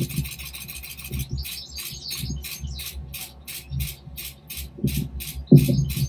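Canon EOS 5D Mark IV shutter firing in a rapid continuous burst for a handheld focus stack, about four or five clicks a second starting about a second in. Low thumps and rumbles run underneath, loudest near the end.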